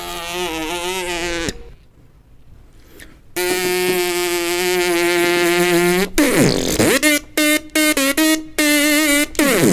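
Beatboxer imitating cartoon sound effects with the voice and lips: a wavering buzzy tone, then a long steady buzzing note, a swoop down and back up, and a run of short choppy notes ending in a quick upward slide.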